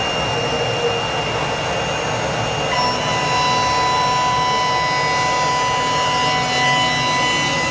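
CNC router spindle at 14,000 rpm driving a 6 mm horizontal grooving cutter through the edge of an MDF board at a 10 m/min feed: a loud, steady high whine over the noise of the cut. A second, lower whine joins about three seconds in.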